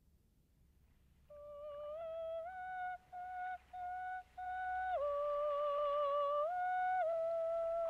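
A high, wordless female voice singing a slow vocalise of long held notes with a slight wobble, stepping up and down between a few pitches. It comes in about a second in, with a few short breaks between notes, over a faint low hum.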